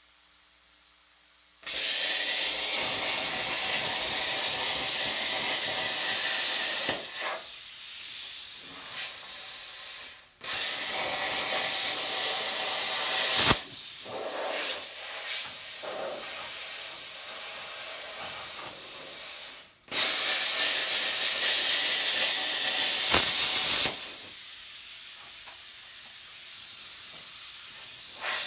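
Plasma cutter cutting through the thin steel of a car's C-channel frame cross member: a loud, even hiss with a faint high whine, in three cuts of several seconds each. Between cuts a quieter hiss of air keeps running.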